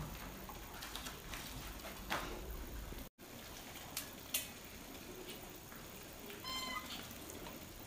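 A cat meows once, a short call about six and a half seconds in that rises a little at the end, over light handling noises of food being prepared. A sharp clink a little after four seconds in is the loudest sound.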